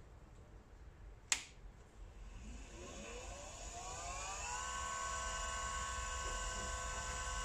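Homemade tool post grinder on a mini lathe, driven by a small 24-volt DC motor, clicks on about a second in. Its whine then rises in pitch over a couple of seconds as it spins up, and holds steady at speed.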